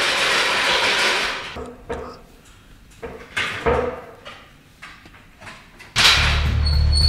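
A few light knocks and clanks from a stepladder being set down, opened and stepped onto, after a hiss that fades out in the first second and a half. Background music with a heavy bass comes back in about six seconds in.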